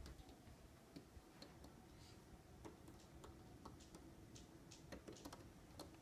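Faint buzzing of bees at a window, a low steady hum, with scattered light ticks over near silence.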